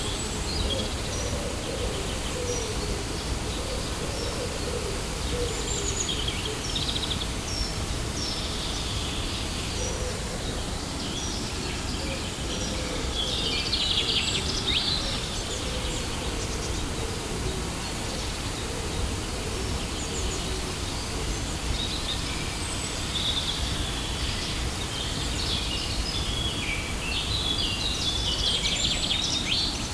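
Steady rush of falling water from a waterfall, with birds chirping in scattered bursts above it, busiest about halfway through and near the end.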